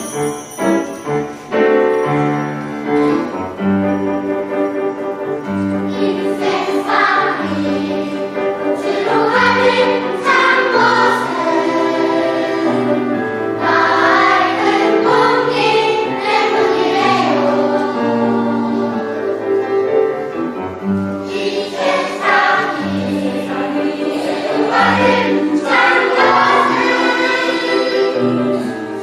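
A mixed family choir of adults and children singing a song together over a sustained accompaniment.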